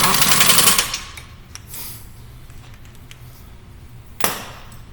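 Pneumatic impact wrench with an 18 mm socket hammering a steering knuckle bolt tight in a loud rapid rattle for just under a second, followed by a second short burst about four seconds in.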